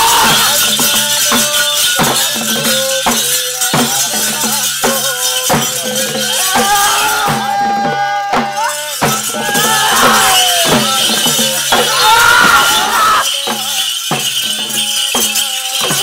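Ritual folk music: hand-struck drums beat steadily while the dancer's metal anklets (chilambu) jingle with each step, and voices sing over them.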